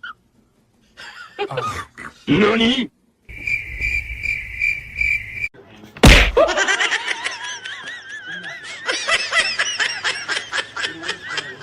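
Edited-in meme sound effects: a shouted "Nani?!", then a steady high tone for about two seconds, a sudden loud hit about six seconds in, and several seconds of laughter after it.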